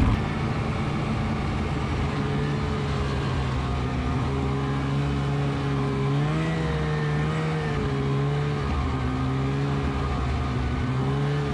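Snowmobile engine running steadily under way, with a steady hiss over it; about halfway through the engine note rises a little and wavers before settling back.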